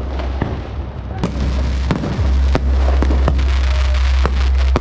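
Fireworks and firecrackers going off in irregular sharp bangs and cracks over a steady low rumble, which grows louder about halfway through.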